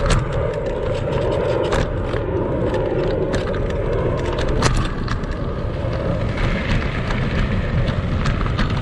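Kugoo Max Speed electric scooter ridden over rough off-road ground, with a steady rumble and many short rattles and knocks from the frame and suspension. The clattering is typical of the play and loose parts these scooters suffer from.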